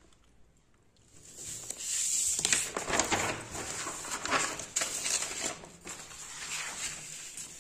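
Paper rustling and crinkling as exam sheets are handled, a run of uneven crackles starting about a second in.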